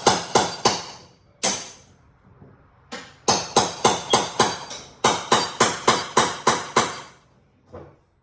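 Hammer striking a steel cat's paw nail puller in quick runs of ringing metal-on-metal blows, about three a second, with short pauses between runs, driving the claw under a fastener head.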